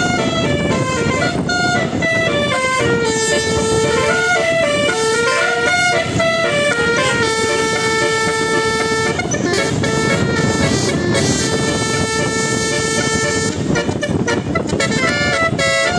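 Bus telolet horn, a set of air trumpet horns, playing a tune of held notes that step up and down in pitch, over a low rumble.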